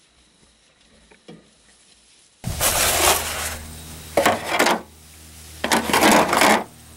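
Aluminium foil crinkling and crackling as a foil-covered disposable roasting pan is handled, in three loud bursts of about a second each. Before them come a few faint clicks.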